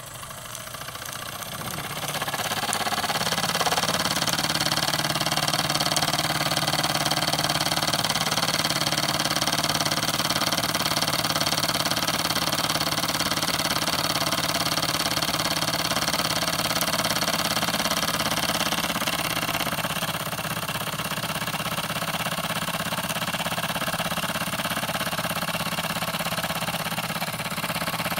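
Wilesco D10 toy steam engine running after starting by itself, getting louder over the first few seconds as it comes up to speed, then a steady rapid beat. Its vibration rattles on the ceramic tile it sits on, and it runs slightly quieter about two-thirds of the way through.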